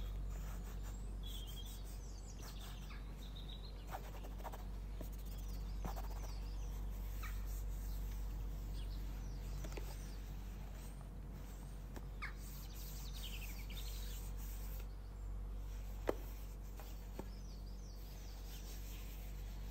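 Steady low background hum with faint scattered taps and rubs from cotton-gloved hands handling a cardboard perfume box, and one sharper tap about sixteen seconds in. A few faint high chirps come and go.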